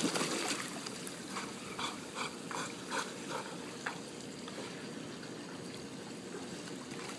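Pool water lapping and trickling around a swimming dog, with a run of soft paddling splashes about twice a second in the first half.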